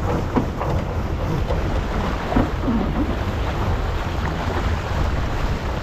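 Steady wind rumbling on the microphone over the rush of water along the hull of a Farr 280 sailboat under sail at about 8 knots.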